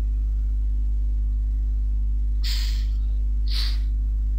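Steady low electrical mains hum on the recording line, with two short hisses about two and a half and three and a half seconds in.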